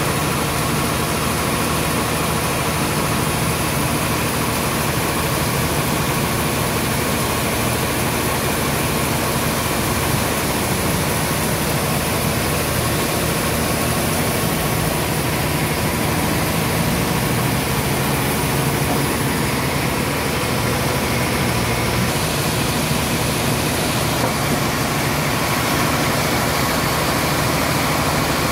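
Sawmill machinery running at a steady pitch: an even engine-like hum with a thin steady whine above it.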